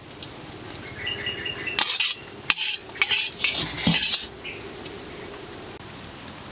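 Metal spoons clinking and scraping against a steel serving tray as food is dished out. There is a brief ringing clink about a second in, then a few short bursts of clatter between about two and four seconds in.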